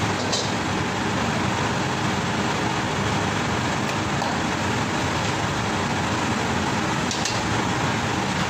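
Commercial high-pressure gas wok burner running at full flame, a loud, steady rushing noise, with a couple of brief high ticks about a third of a second in and after about seven seconds.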